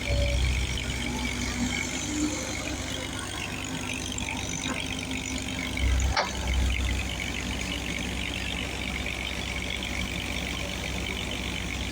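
A vehicle engine running steadily with a low rumble, swelling briefly near the start and again about six seconds in; a single sharp click about six seconds in.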